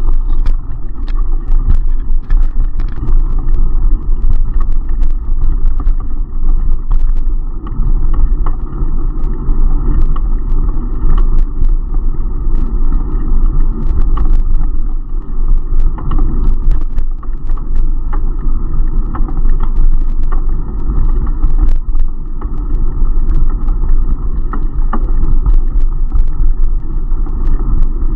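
Loud, steady wind rumble and road vibration on the microphone of an action camera riding along on a bicycle, with scattered light clicks and rattles from bumps in the pavement.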